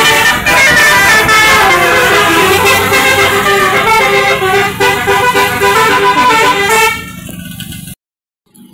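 A bus's Basuri telolet horn, a multi-tone musical horn, playing a loud melody of quick stepping notes. It stops about seven seconds in, leaving quieter background sound, and the audio cuts out briefly near the end.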